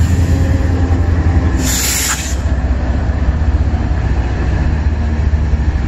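Canadian National freight train's diesel locomotives passing close by: a steady low engine rumble with the noise of wheels on rail. A brief hiss cuts in about two seconds in.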